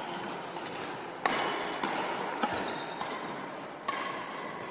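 Badminton rackets smacking a shuttlecock back and forth in a doubles rally, echoing in a large sports hall. Several sharp hits come about a second apart, the loudest a little over a second in.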